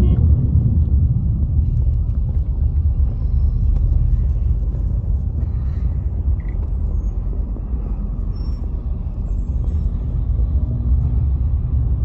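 Steady low rumble of vehicle engines and road traffic, with a large coach bus passing close alongside, heard from inside a vehicle.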